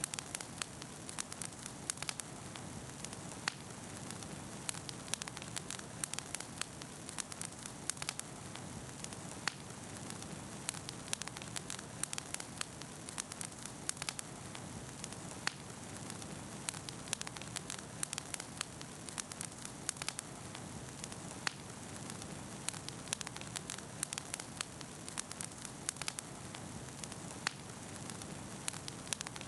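Campfire burning, its wood crackling and popping in quick, irregular snaps over a steady low rush.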